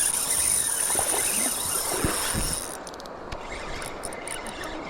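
Crickets chirping steadily in a high, continuous drone. Over them a rushing noise fills the first half and falls away about three seconds in, with a couple of short knocks.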